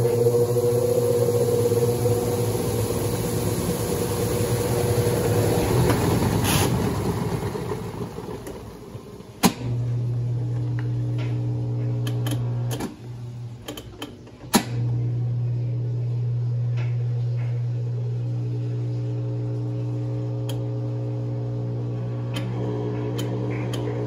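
1992 Brastemp Baby top-loading washing machine agitating a load of towels: a steady motor hum with the churn of the tub. The hum drops away briefly twice, each time returning with a sharp click.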